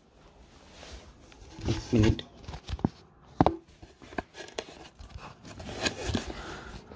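Faint scattered clicks and scraping handling noises, with a louder short sound about two seconds in and a sharp click about three and a half seconds in.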